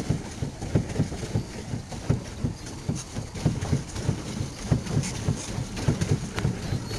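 Quick, heavy footsteps thudding on the ground, about three or four steps a second.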